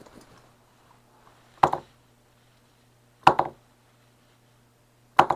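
Three sharp knocks about a second and a half apart as the handheld soldering iron is knocked against and set down on the silicone work mat, over a faint steady low hum.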